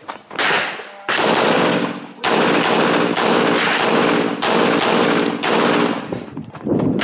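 Rapid string of pistol shots from a red-dot-sighted competition handgun, fired in quick groups with short pauses between them, each shot echoing briefly.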